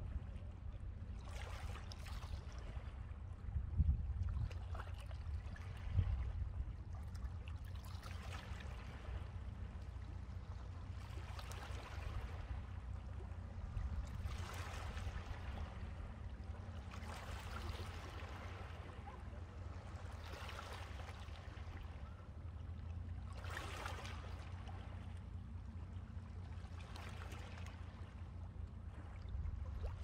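Small sea waves washing in against the shore, one wash swelling and fading about every three seconds, over a steady low rumble.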